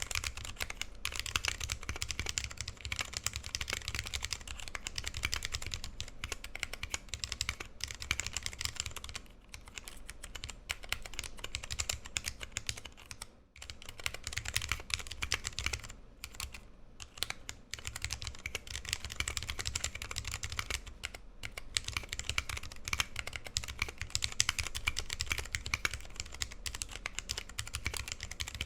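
Continuous fast typing on a 60% mechanical keyboard with lubed vintage brown Alps switches, PBT keycaps and a brass plate: a dense stream of keystrokes broken by a few short pauses.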